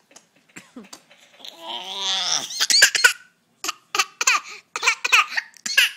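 A young child's fake 'laugh cough', a put-on coughing laugh: one drawn-out breathy sound about a second and a half in, then a run of short choppy laugh bursts.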